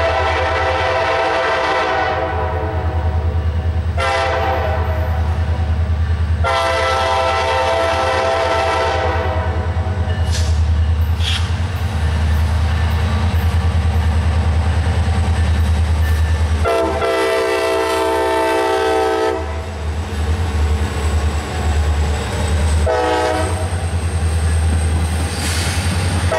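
A passing CSX EMD SD40-3 diesel locomotive sounds its air horn in a series of long and short blasts, a crossing signal pattern, over the steady low rumble of the locomotive engines and the train. The later blasts sound lower in pitch once the locomotive has gone by.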